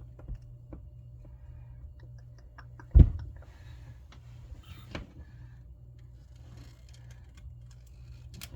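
Scattered small clicks and snips of cutters trimming off the unused Cat 5 conductors, with one heavier thump about three seconds in and another about five seconds in, over a steady low hum.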